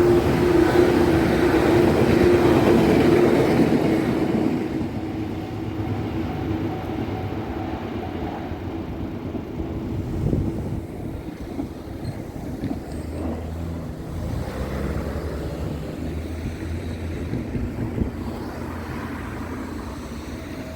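Two coupled 115 series electric trains running past and away. They are loud for the first few seconds, with a steady hum, then the rumble fades gradually as the train recedes.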